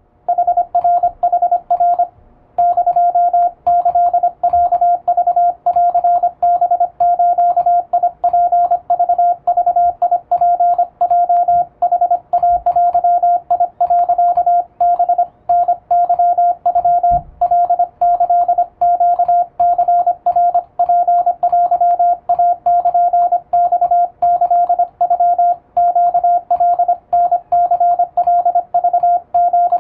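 Morse code sidetone from an electronic keyer sending plain-text Japanese (Wabun) Morse: a single mid-pitched beep keyed on and off in fast dots and dashes, with a short pause about two seconds in.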